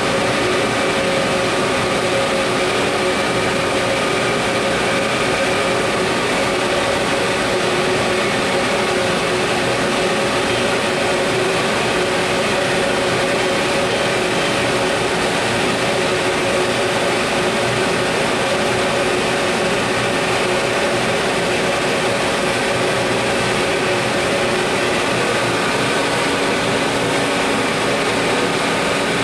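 Steady whir and hum of an ÖBB class 1116 Taurus electric locomotive on a Railjet, standing at the platform with its cooling fans and transformer running. It holds several constant tones under the fan noise, with no change in pitch or level.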